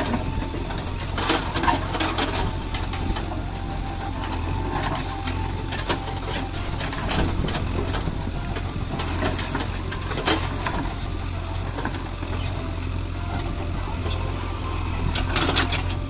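JCB 3DX backhoe loader's diesel engine running steadily as the backhoe digs, with scattered sharp knocks and scrapes of the bucket against stone.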